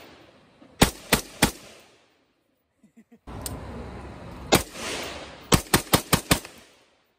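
Anderson Manufacturing AM-15 semi-automatic rifle firing: three quick shots about a second in, then a single shot and, a second later, a fast string of five shots, each trailed by a short echo.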